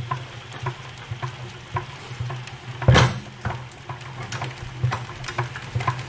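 Hand-cranked Maxant honey extractor spinning frames of comb in its stainless-steel drum: a steady low hum with short ticks about twice a second, and one louder knock about halfway through.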